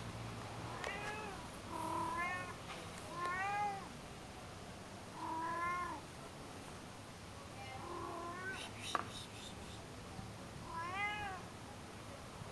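A nervous domestic cat meowing about six times, each short meow rising and then falling in pitch, a second or more apart. A single sharp click comes about nine seconds in.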